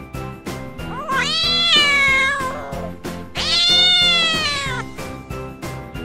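A cat meowing twice, two long drawn-out meows of about a second and a half each, the pitch rising at the start and slowly falling away. Background music with a quick steady beat plays underneath.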